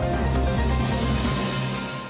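Theme music of a TV programme's title sequence: held notes over a pulsing bass, starting to fade out near the end.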